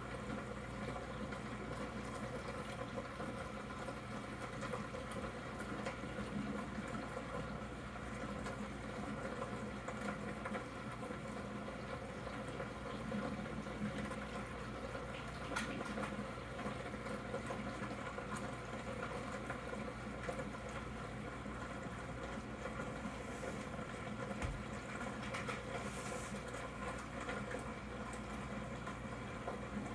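Aquarium aeration bubbling steadily, a stream of air bubbles rising and breaking at the water surface, over a low steady hum.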